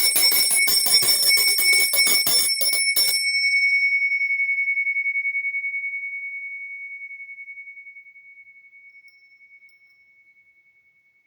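A small hand bell is shaken rapidly, its clapper striking about five times a second, until about three seconds in. It is then left to ring out, a single clear high tone fading slowly with a slight pulse.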